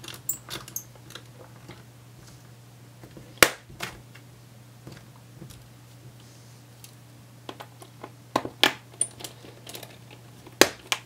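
A small Phillips screwdriver driving screws back into a laptop's base panel: scattered light clicks and taps of the bit and the screws, with one sharp click about three and a half seconds in and a run of clicks near the end, over a faint steady low hum.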